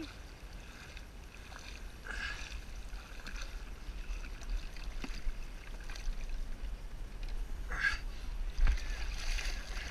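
Water sloshing against a kayak hull, with a low wind rumble on the microphone and a few short splashes as a hooked fish thrashes at the surface alongside.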